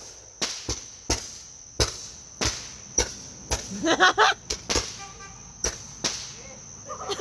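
Handheld Roman candle firing a string of sharp pops, about ten of them, roughly one every half second to a second. Crickets trill steadily behind.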